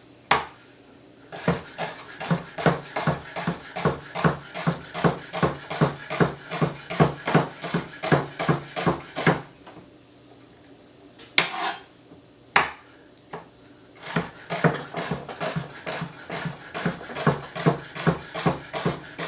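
Kitchen knife chopping celery on a cutting board: a steady run of sharp knocks, about three to four a second, stopping for a few seconds in the middle and then starting again.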